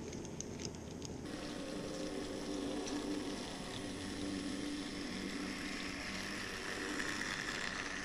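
Minitrix V160 N-scale model diesel locomotives in double traction running along the track: a steady whirr of small electric motors and wheels rolling on the rails, with a few light clicks in the first second. The sound grows a little louder near the end as the locomotives pass close.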